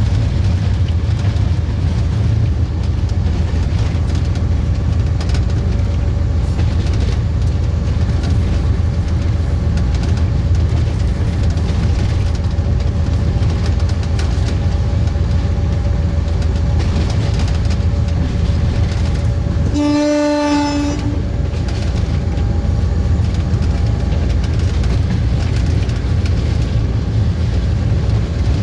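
Diesel locomotive cab ride: a steady rumble of engine and wheels on the rails, with one horn blast of about a second roughly two-thirds of the way through.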